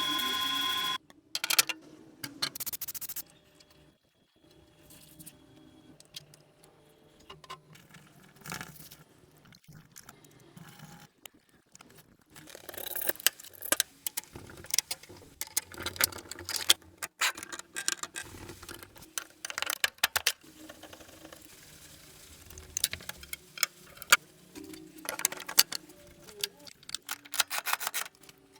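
Mechanical clicking and clacking of a National Cash Register's metal mechanism, irregular. Sparse at first, dense and louder through the second half. A steady electronic-sounding tone cuts off about a second in.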